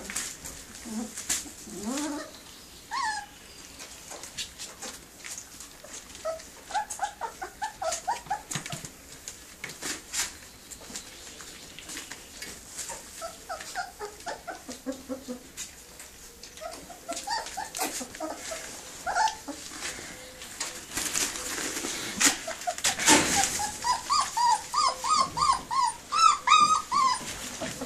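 A litter of puppies whimpering and whining in short high-pitched cries, with a quick run of whines near the end, among rustles and clicks.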